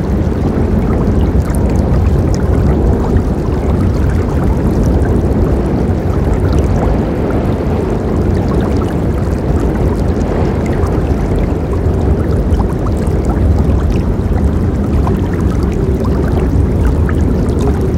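Forest river water rushing steadily: a deep, even flow with small splashes and drips ticking through it.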